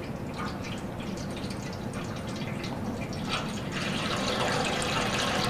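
Water pouring from a plastic bottle into a metal cooking pot: a steady splashing stream that grows a little louder near the end.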